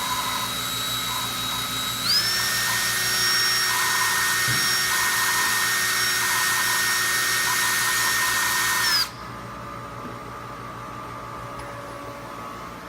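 Power drill spinning a valve lapping tool to grind a valve into its seat with lapping compound on a Subaru EJ207 cylinder head: a steady motor whine that speeds up about two seconds in and stops abruptly about nine seconds in, leaving low shop hum.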